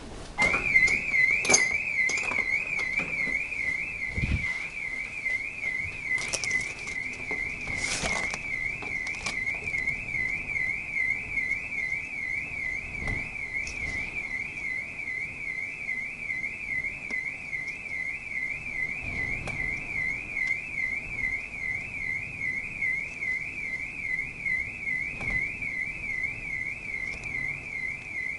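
Electronic alarm siren warbling quickly and evenly up and down between two close high pitches, starting abruptly about half a second in. A few short sharp cracks and a low thump sound in its first seconds.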